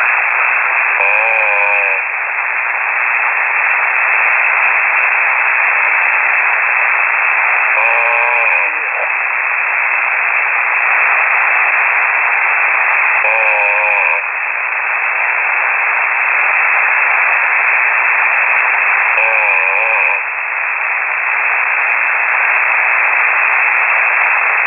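Single-sideband shortwave radio reception: steady, narrow-band static hiss with a man's snore coming through about every six seconds, four times, each a second or less with a wavering pitch. This is the open microphone of the snoring ham.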